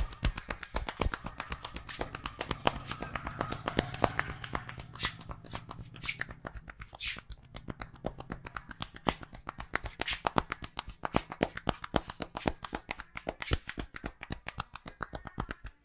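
Percussive head massage by hand: the barber's hands strike the head in a fast, unbroken run of sharp claps, about seven a second.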